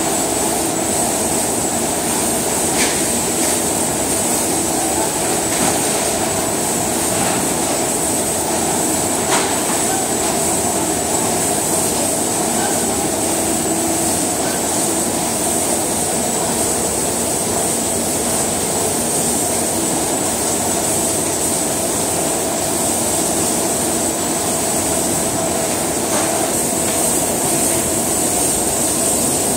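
Steady din of seafood processing-plant machinery, with a constant high whine running through it and a few faint knocks.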